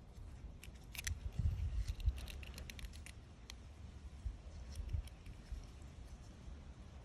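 Small clicks and scrapes from handling a 1960s Zippo lighter while working at a part stuck inside it. Low handling thumps come about a second in.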